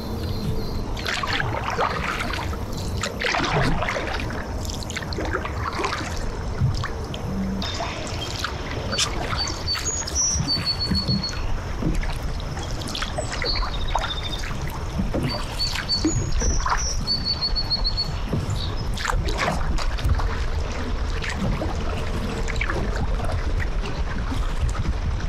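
Kayak paddle strokes dipping and splashing in calm river water, with dripping between strokes. A bird calls twice, each time a short run of high chirping notes, about ten and sixteen seconds in.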